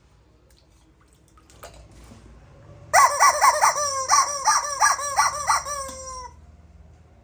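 A fowl calling: about ten loud calls in quick succession over some three seconds, each bending in pitch, after a faint click.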